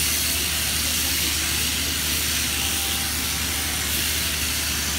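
Overhead-drive sheep-shearing handpiece running steadily as its cutter clips through a sheep's fleece: a continuous buzzing hiss over a low hum.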